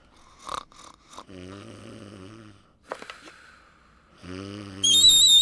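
Cartoon snoring from sleeping insects: two long, drawn-out snores. Near the end a shrill, piercing note on a small wooden pipe blasts in, wavering slightly, and is much louder than the snores.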